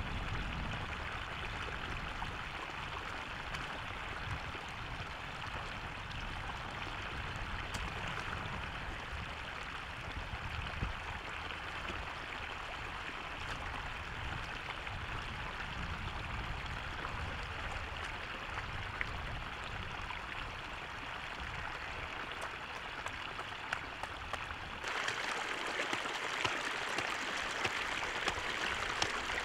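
Floodwater running and splashing steadily as it pours across a dirt road through a breach. About 25 s in, the sound changes suddenly to a closer, louder and higher splashing of water flowing past a bamboo screen set in the current.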